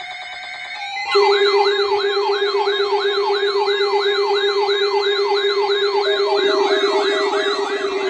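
Several electronic alarm and siren tones sounding together: steady tones, joined about a second in by a louder layer with a steady low tone, a siren sweep repeating about three times a second and a high warble, then a pulsing beep from about six seconds in.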